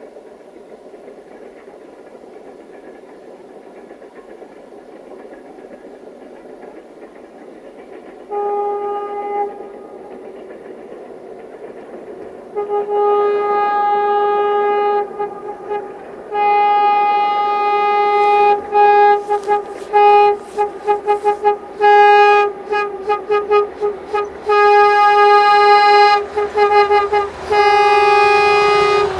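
Diesel locomotive's air horn sounding again and again as the train approaches: one short blast, then long blasts and a run of quick toots, over a faint steady rumble of the train.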